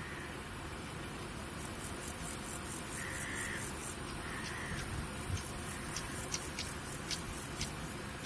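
Insects chirping in a grassy field over a steady high hiss. About halfway in, a run of short, evenly spaced high chirps begins, a couple each second.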